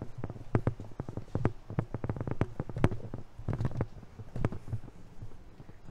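Footsteps going down steep steel grating stairs: irregular thumps and clanks on the metal treads, about three a second.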